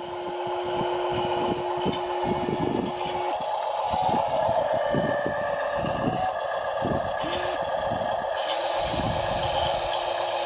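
Small electric motors of a radio-controlled model truck and excavator running with a steady whine, with a scatter of irregular clicks and knocks from the plastic model moving.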